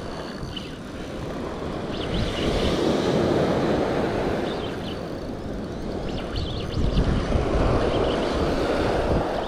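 Wind buffeting the microphone over small waves washing up a sandy beach, the surf swelling louder twice.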